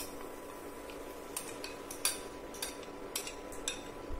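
Metal spoon scraping thick masala paste out of a glass bowl, giving a string of short, irregular clinks against the glass, over a faint steady hum.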